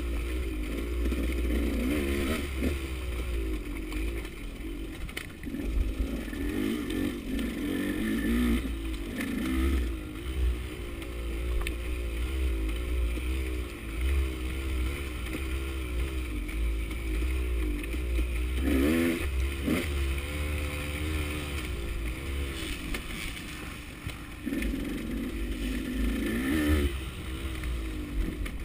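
KTM 200 two-stroke enduro engine under way, its pitch rising and falling constantly as the throttle is worked on and off through tight singletrack. A few short knocks break through about two-thirds of the way in.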